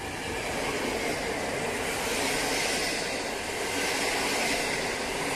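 PKP Intercity passenger coaches rolling past the platform: a steady rumble and hiss of wheels on rails, growing a little louder through the middle.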